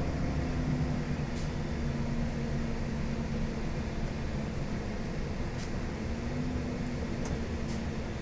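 Interior of a 2008 Gillig Phantom transit bus under way: its Cummins ISL diesel engine running steadily under the road noise, with a few faint light ticks.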